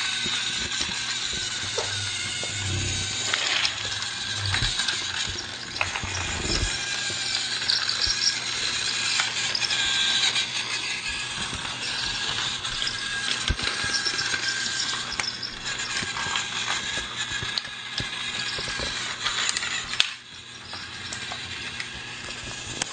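Small electric motor of a battery-powered toy train running steadily, with many clicks and rattles from the train moving along its track.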